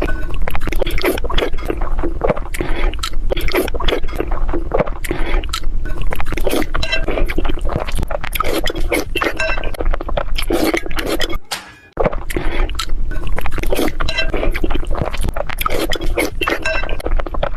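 Busy, rapid clinking and clattering of hard objects knocking together, with a brief break about twelve seconds in.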